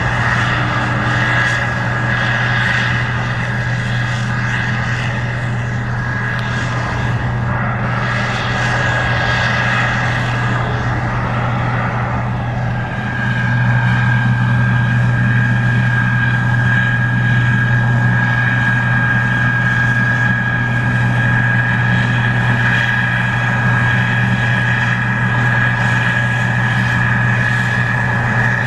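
Case IH 2388 Axial-Flow combine running while harvesting corn: a steady diesel engine drone with a high, steady whine over it, getting louder about halfway through.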